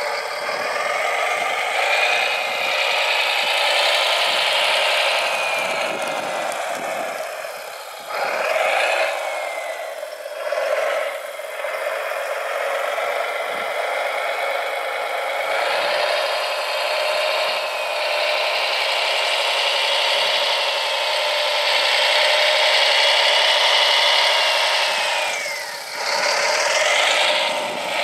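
Electric motors and gearboxes of radio-controlled construction machine models whining while they work, the pitch gliding up and down as the motors speed up and slow, with some falling away as a motor eases off.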